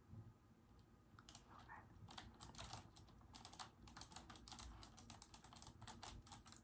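Quiet typing on a mechanical keyboard: a quick, irregular run of key clicks that starts about a second in and keeps going.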